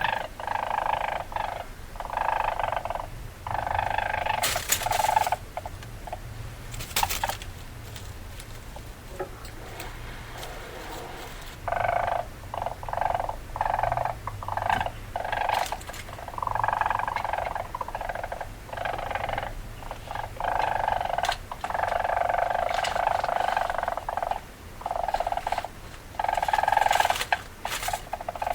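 Weasel chattering calls in repeated bursts of one to two seconds with short breaks, interrupted by a few sharp clicks and a quieter spell about a third of the way in.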